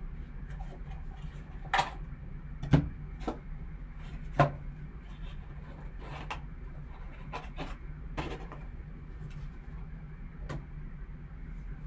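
A cardboard 2019 Topps Clearly Authentic trading-card box being opened and handled with gloved hands: scattered sharp clicks and knocks, three louder ones within the first few seconds, over a steady low hum.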